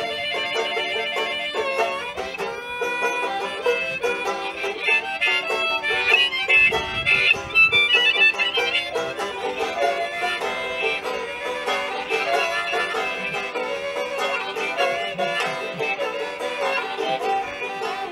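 Banjo and harmonica playing an instrumental passage together: steady picked banjo notes with harmonica lines held over them.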